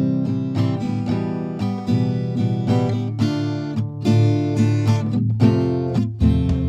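Background music: plucked and strummed guitar playing a steady run of notes.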